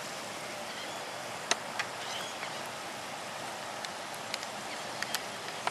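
Steady outdoor background hiss with a few short, sharp clicks scattered through it.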